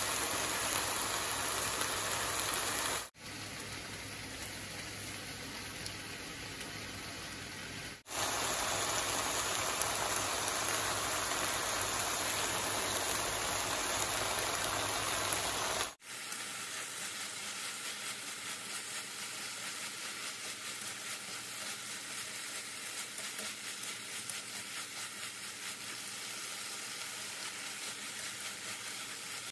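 Eggplant, sausage slices and shiso leaves sizzling in oil as they are stir-fried in a pan. The sizzle is steady, dropping softer at about three seconds, louder again at eight, and softer again around sixteen seconds.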